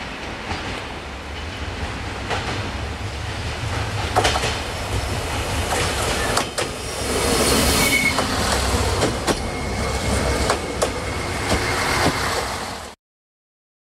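Siemens Desiro diesel multiple unit approaching and passing close by, its engine rumble growing louder as it nears, with wheels clicking over the rail joints and a brief high wheel squeal. The sound cuts off abruptly near the end.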